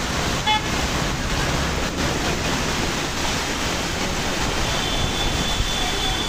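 Steady rushing noise of heavy monsoon rain and floodwater, with vehicles driving through the flooded street. There is a brief high tone about half a second in, and a steady high whine starts near the end.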